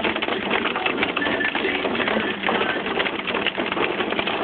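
Hailstones pelting the windshield and roof of a Ford Edge SUV, heard from inside the cabin: a dense, unbroken clatter of countless small impacts.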